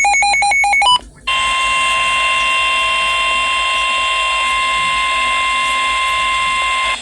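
Emergency alert attention signal for a severe thunderstorm warning: a rapid string of electronic beeps for about a second, then a single steady alert tone held for about six seconds before it cuts off.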